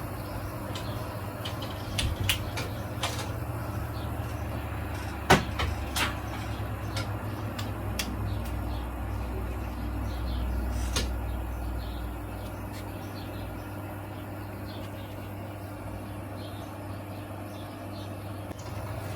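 Miele Meteor 1000 Novotronic washing machine running: a steady low hum with scattered sharp clicks and knocks, the loudest about five seconds in. A deeper rumble swells from about eight seconds and fades by about twelve.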